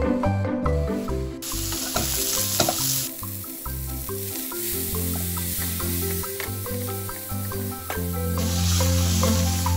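Cubes of beef sizzling as they fry in hot oil in a pan, the hiss loudest about one and a half seconds in and again near the end, over light background music.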